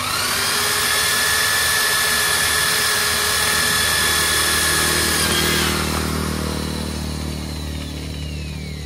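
Corded electric drill starting up and boring into a wooden board, running at a steady high whine for about five and a half seconds, then slowing with a falling pitch.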